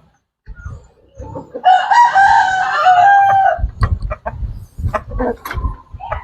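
A rooster crowing once, a single long call of about two seconds. It is followed by a run of short thumps and clicks.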